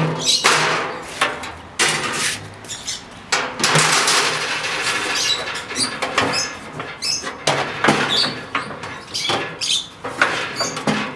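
Metal grill grates being lifted out of a pellet grill, with a run of irregular scraping and knocking of metal on metal.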